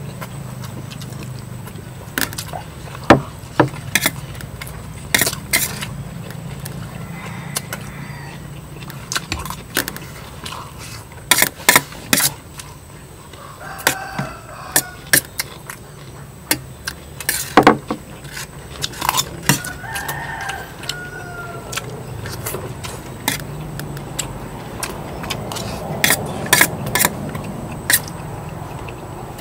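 Irregular sharp clinks of a spoon against a plate during eating, over a steady low hum. A bird calls twice in the background, about halfway through and again a few seconds later.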